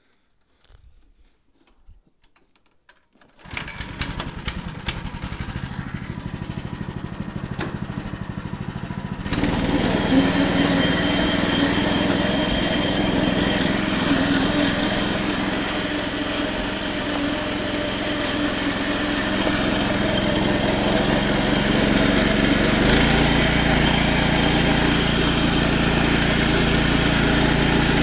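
Minitractor engine starting about three and a half seconds in, idling for a few seconds, then running louder and harder under way as the tractor drives off.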